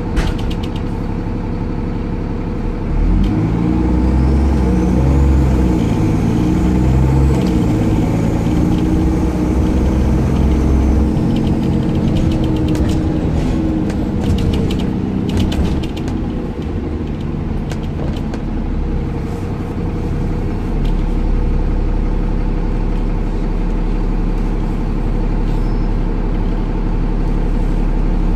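Dennis Trident 2 double-decker bus's Cummins ISCe diesel engine, heard from inside the passenger saloon. It runs steadily at first, then from about three seconds in it accelerates, its pitch rising and falling through the gears, with a faint high whine over it. Clicking rattles come near the middle, and it settles into a steady low rumble for the rest.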